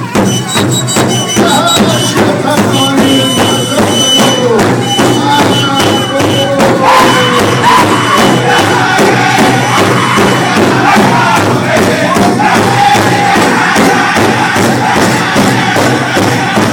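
Powwow drum group singing in chorus over a big drum struck in a steady, fast beat. A high eagle-bone whistle shrills over them in long repeated blasts, then stops about eleven seconds in.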